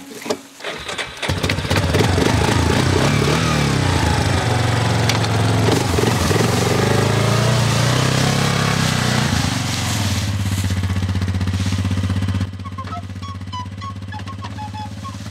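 Yamaha ATV engine catching about a second in, then revving up and down as the quad pulls away before settling to a steady run. Near the end, music with short, separate notes comes in over the engine.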